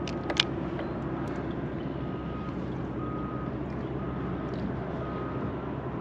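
A vehicle's reversing alarm beeping about once a second over a steady low mechanical hum, with a couple of sharp clicks right at the start.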